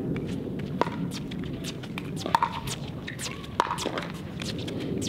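Pickleball paddles striking a plastic ball in a rally: three sharp, ringing pocks roughly a second and a half apart, with fainter clicks between them.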